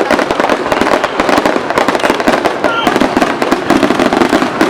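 Aerial fireworks going off in a dense, continuous barrage of rapid bangs and crackles, with a brief whistle near the middle.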